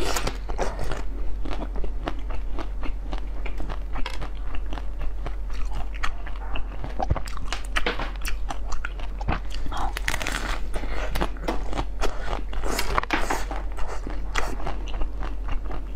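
Close-miked ASMR biting and chewing of a frozen blue bottle-shaped treat, a dense run of small sharp crunches and crackles as pieces break off and are chewed.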